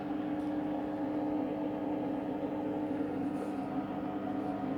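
Candy Grand'O Vita washing machine running with a steady hum at the end of the pre-wash, its drum rotating slowly rather than spinning.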